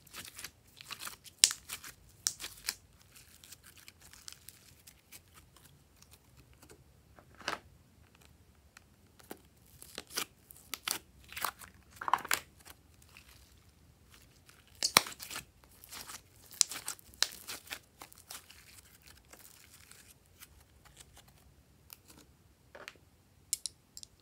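Glossy slime being squeezed and pulled apart by hand: sticky, wet crackling and popping in irregular bursts. A few sharp clicks near the end.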